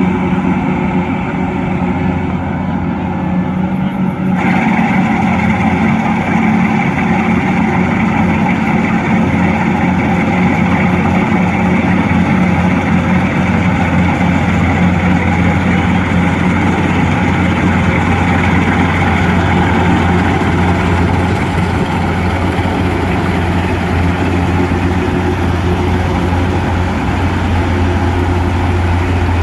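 Kubota DC105X rice combine harvester's diesel engine running steadily at a constant speed. About four seconds in, a louder rushing mechanical noise joins in and carries on.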